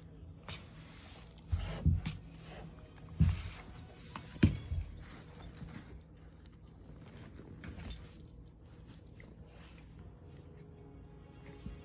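Scuffling and rustling of a puppy play-wrestling, with three loud thumps about two, three and four and a half seconds in.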